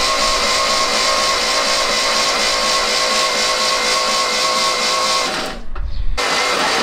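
Fiat 500 F's 499cc air-cooled two-cylinder engine being turned over on the starter with its spark plugs removed: a steady whirring with an even pulsing. It stops about five seconds in and starts again under a second later. It is being cranked to build oil pressure before a first proper start.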